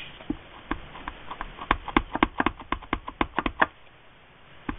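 A run of light taps and clicks from hands working a folded paper piece and stamping supplies on a tabletop. The taps come in a quick flurry of about five a second in the middle and stop shortly before the end.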